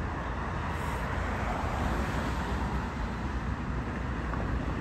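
Steady vehicle noise: a low rumble with an even hiss, as of a car moving on the road.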